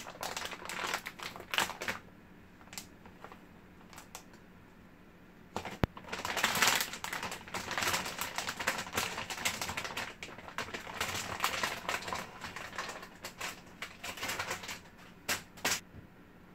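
Metallised anti-static plastic bag crinkling and crackling as a graphics card is worked out of it, in dense bursts. There is a quieter lull after about two seconds, then a single sharp click a little before the crackling picks up again.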